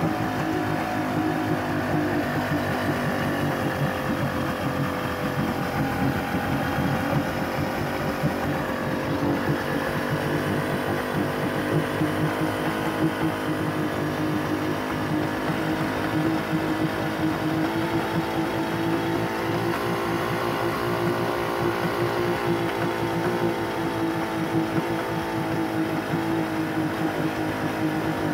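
A 2001 Yamaha OX66 225 HP outboard, a two-stroke V6, running steadily out of the water on a flush water supply, its pitch wandering slightly.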